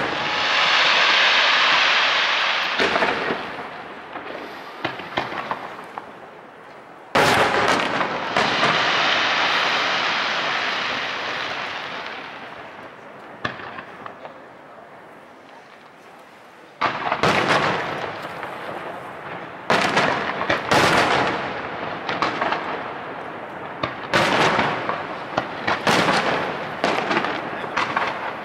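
Aerial firework shells bursting overhead: crackling at the start, a sharp bang about seven seconds in with several seconds of crackle fading after it, then from about seventeen seconds a quick run of bangs and crackles one after another.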